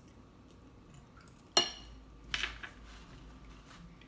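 A metal fork set down in a ceramic bowl: a sharp clink with a short ring about one and a half seconds in, followed a moment later by a softer clatter as it settles against the bowl.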